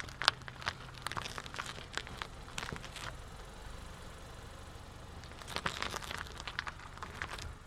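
A car's low, steady engine hum with irregular crackling and crunching clicks over it. The clicks come thickest in the first three seconds and again near the end.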